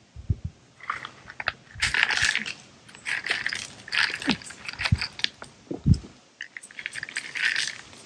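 Loose river rock crunching and clinking under footsteps in short bursts, with a few dull low thuds in between.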